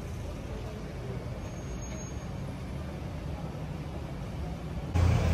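Steady low rumble of road vehicles at an airport curb, with engines running and traffic passing. Near the end it cuts suddenly to louder, closer voices.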